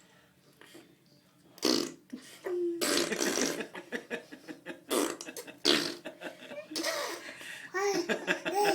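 A baby blowing raspberries against a forearm: wet, sputtering fart-like noises, first a short one, then a long run of them in bursts. Laughter comes in near the end.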